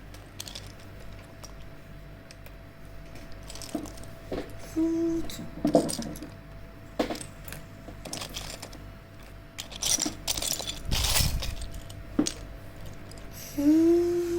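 Small hard plastic toy pieces clicking, clattering and knocking as they are handled, in scattered sharp taps with a denser burst about eleven seconds in.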